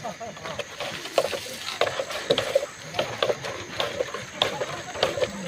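Irregular short knocks and scrapes, two or three a second, from hand work such as tools or hands striking and moving soil or plants.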